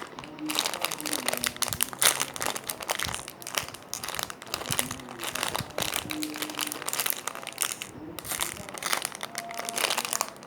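Steady crinkling and rustling as foam squishy toys are handled and squeezed, over faint background music.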